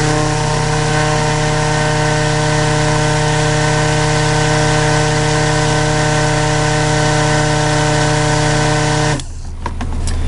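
A 200-watt stick blender (immersion blender) runs steadily with a constant motor whine, mixing soap oils and lye toward trace. The steady tone cuts out about nine seconds in.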